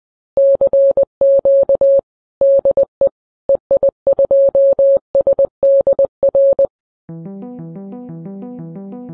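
Morse code sent as a single steady beeping tone, keyed in short and long elements with gaps between characters, stopping about seven seconds in. Synthesizer music with a repeating keyboard pattern then begins.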